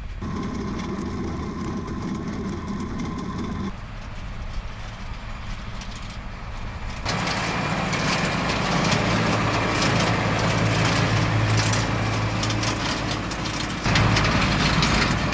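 Valtra N174 Direct tractor's engine running steadily under load while pulling seedbed cultivators, with a rushing noise that grows louder in the second half. The sound changes abruptly three times.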